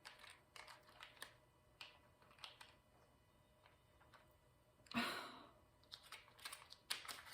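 Faint, scattered light clicks and taps of small plastic bags of diamond-painting drills being handled, with a brief louder swish about five seconds in.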